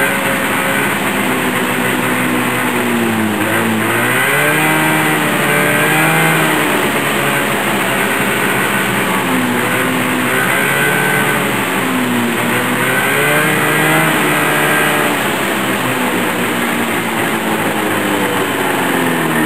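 1973 Arctic Cat Panther 440 snowmobile's fan-cooled two-stroke engine running with the hood open, revved up and down over and over by hand on the throttle.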